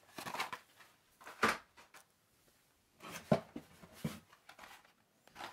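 Carded Hot Wheels cars being pulled out of a cardboard case: a few scattered light clicks and scrapes of plastic blister packs and card against cardboard, with short silences between.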